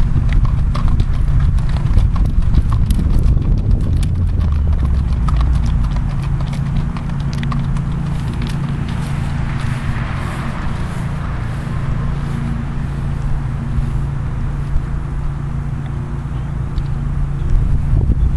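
Hoofbeats of a gaited Rocky Mountain / Kentucky Mountain mare on a gravel path, a run of sharp clip-clops that thin out and fade as she moves away. A steady low rumble runs underneath.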